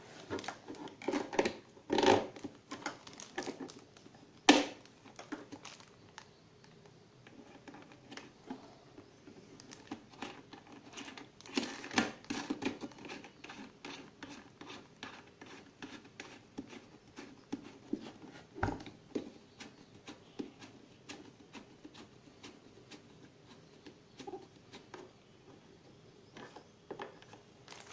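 Hard plastic parts of a toilet cistern clicking and tapping as they are handled and fitted, with a few sharper knocks of plastic on plastic.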